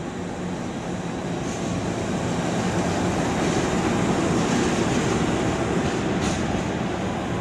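CC 206 diesel-electric locomotive running light at shunting speed past close by: a steady engine drone with the rumble of wheels on rail. It grows louder to a peak about four to five seconds in as the locomotive passes, then eases.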